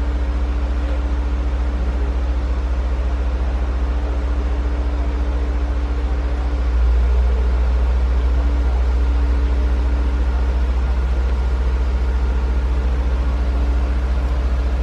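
Heavy crane's diesel engine running steadily: a continuous low rumble with a steady hum above it, getting slightly louder about seven seconds in.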